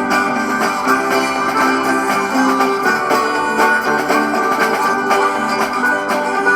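Background music: plucked acoustic string instruments, guitar and banjo, in an upbeat country style.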